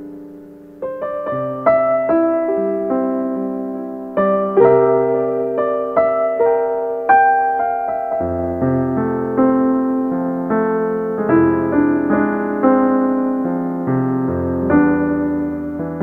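Piano music: a held chord dies away, then from about a second in new notes and chords are struck one after another, each ringing and fading.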